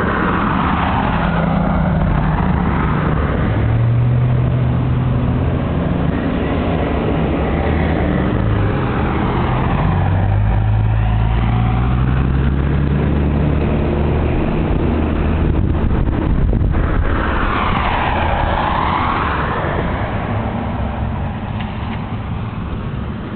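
Continuous motor-vehicle engine noise: a low, steady hum whose pitch drifts, with a sweeping hiss that swells and fades three times as vehicles pass. It eases off slightly near the end.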